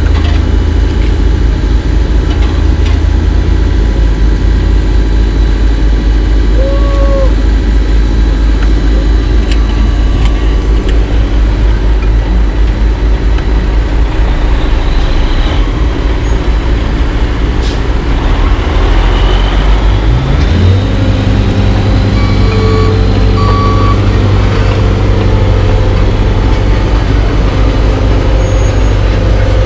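Heavy diesel engines of an asphalt paver and dump truck running steadily. About two-thirds of the way through, one engine revs up and holds at a higher pitch.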